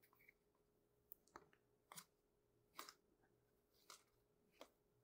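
Faint soft ticks of football trading cards being flipped or slid off a stack one at a time, about once a second.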